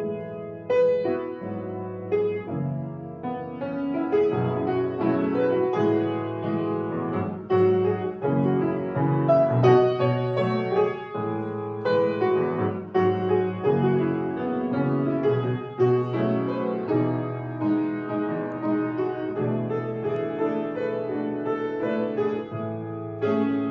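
Solo piano music: a melody over chords, with notes struck one after another.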